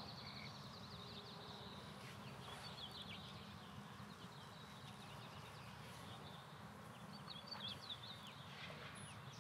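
Faint songbird chirps and twitters in short quick runs, near the start, a couple of seconds in and again near the end, over a steady low rumble of background noise.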